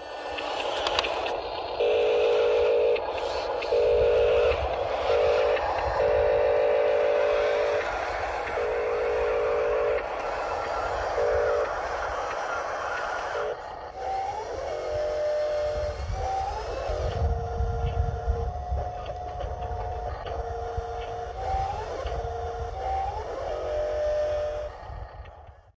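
Electronic sound from radio-controlled construction models' sound modules. First come a series of irregular, steady horn-like tones, then tones that rise briefly and hold over a low engine rumble.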